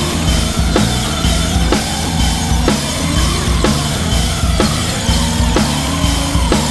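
Rock music with a steady drum-kit beat, about two beats a second.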